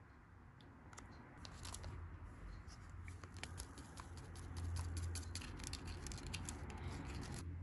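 Plastic candy-kit tray handled close up: the clear plastic lid folded back, powder poured from a foil sachet, then a small plastic spoon stirring and scraping in the plastic compartment, a quick run of small clicks and scrapes that stops abruptly near the end.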